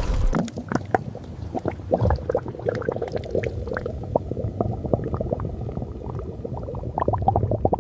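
Cola fizzing and bubbling hard as Mentos set off the eruption, with many small pops over a low rumble.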